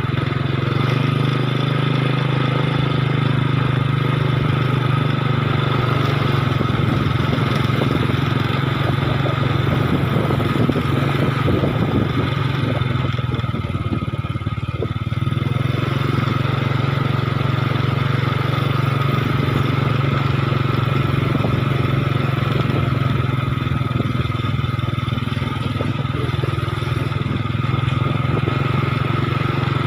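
Vehicle engine running at a steady speed with a constant hum. It eases off briefly about halfway through, then picks up again.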